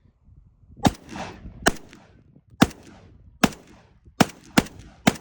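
Vepr-12 semi-automatic 12-gauge shotgun fired seven times in quick succession, about one shot a second, with the last three coming faster. Each shot trails a brief echo.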